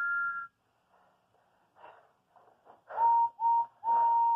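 Steam engine whistles. A two-note whistle cuts off about half a second in. After a pause, a lower single-note whistle gives two short toots and then a longer blast, heard through a TV speaker.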